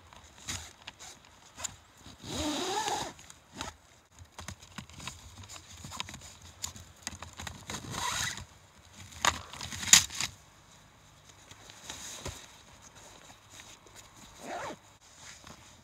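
Nylon webbing straps being pulled through plastic buckles as snowshoes are strapped onto a backpack: several short rasping zips, with a sharp click about ten seconds in.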